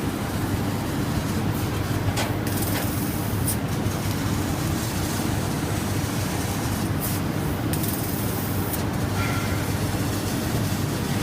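CNC laser cutting machine running with a steady low drone and hum. A hiss over it cuts out and returns a few times.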